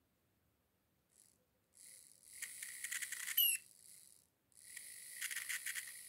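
Small DC motor from a game controller, powered from a 9-volt battery, spinning up in three short runs with a high, rattling buzz and a brief squeak in the middle run. This is the noisy running that the repair sets out to fix.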